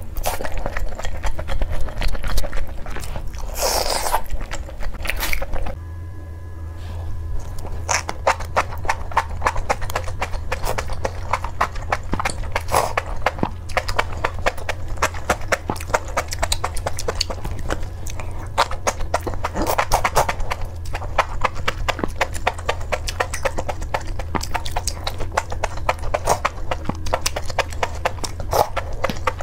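Mouth sounds of eating chili-oil enoki mushrooms: fast wet chewing, smacking and slurping, heard as a dense stream of quick clicks.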